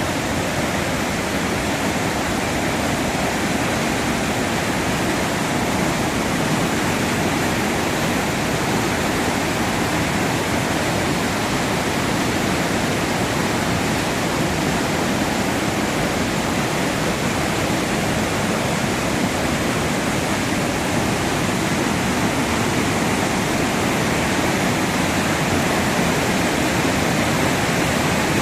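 Waterfall swollen with rainwater, a heavy flow of water rushing down in a steady, even roar.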